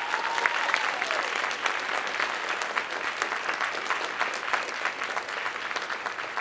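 An audience applauding loudly, many hands clapping together, with a high call from the crowd that falls away about a second in.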